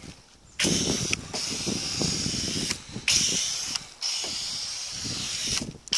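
Hose-end foam gun spraying thick car-wash foam onto a truck's body: a steady hiss of water and suds, starting about half a second in and breaking off briefly twice before stopping near the end.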